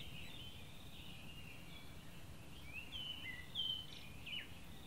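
Small birds chirping, short high whistled notes, some sliding up or down, coming more often in the second half, over a low steady background rumble.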